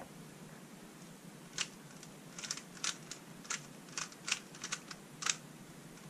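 Plastic 3x3x3 Rubik's cube being twisted by hand: an irregular run of quick clicks as its layers turn and snap into place, starting about a second and a half in and stopping a little after five seconds.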